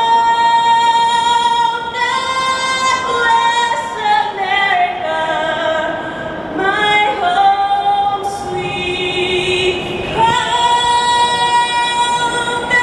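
A woman singing solo into a microphone, heard over the stadium's loudspeakers. She holds long high notes, one in the first two seconds and another near the end, with sliding phrases in between.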